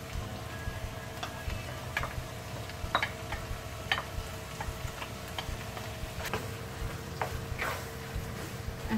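Wooden spatula clicking and scraping against a frying pan and a sauce container while tomato sauce is scraped in and stirred through minced beef, irregular taps about once a second over a steady hum.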